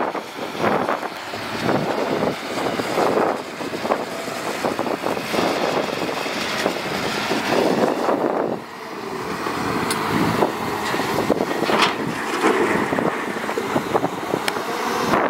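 Caterpillar 320C excavator's diesel engine and hydraulics working hard as it digs and swings a load of soil, the sound surging and easing with each movement. A few sharp knocks come in the second half.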